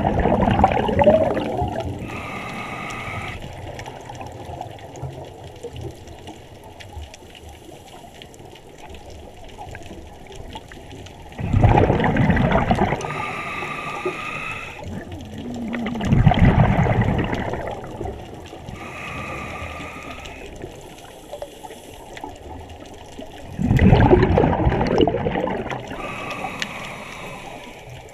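Scuba diver breathing through a regulator: a gurgling rush of exhaled bubbles four times, each answered a second or two later by the short, faintly whistling hiss of an inhalation through the demand valve, one breath every several seconds.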